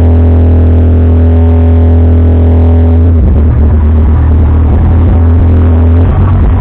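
Loud music with heavy bass and sustained chords that change about three seconds in and again near the end.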